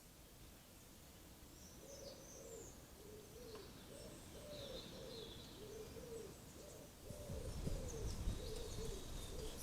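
Common woodpigeon cooing, a run of soft, low hoots in its repeated song phrase. Small birds chirp faintly higher up, and a low rumble comes in about seven seconds in.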